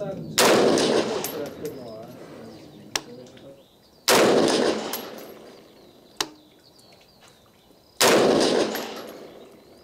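Three single shots from a Norinco CQA M4, an AR-15 clone in 5.56 mm, firing .223 Remington rounds semi-automatically, about four seconds apart, each crack followed by a decaying echo.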